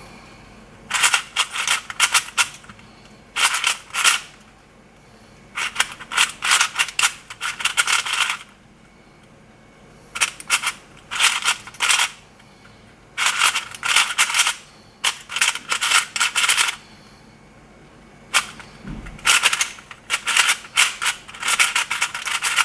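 Fangshi Shuang Ren 3x3 speed cube being turned fast by hand, its plastic layers clicking and rattling in quick bursts of a second or two with short pauses between. The cube is unlubed and makes a lot of noise.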